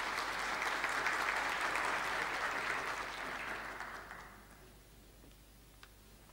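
Audience applauding at the end of a talk, steady for about three seconds and then fading out.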